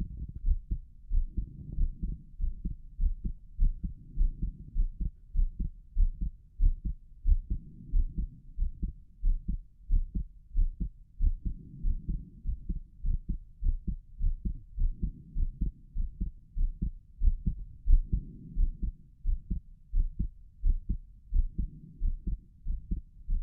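A human heart heard through a stethoscope on the chest, beating steadily and somewhat faster than usual from excitement, each beat a dull low thump. A soft rushing noise swells and fades every five or six seconds beneath the beats.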